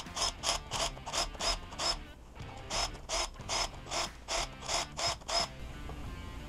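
Cordless impact driver on the rocker arm bolts of a 6.0 LQ4 V8, in a quick run of short rattling bursts, about three to four a second. The bursts pause briefly about two seconds in, then run again and stop shortly before the end.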